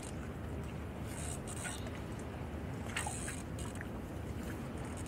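Braided Dyneema line rubbing and rasping through the hands in a few short scratchy strokes as its cover is milked back over a tapered splice, over a steady low rumble.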